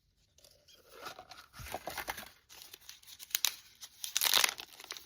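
Crinkly plastic packaging being handled, rustling and tearing in irregular bursts, the loudest about four seconds in.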